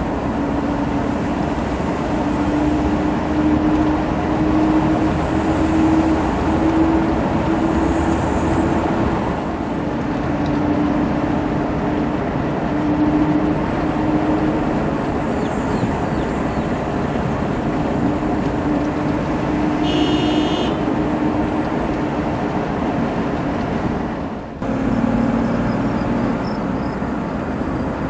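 Engine and road noise heard from inside a moving vehicle's cabin, steady throughout, with the engine note rising and falling as it drives. A brief high-pitched tone sounds about two-thirds of the way through, and the noise dips for a moment near the end.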